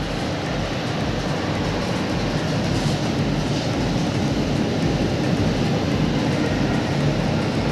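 Steady rumbling noise of a running train, slowly growing a little louder.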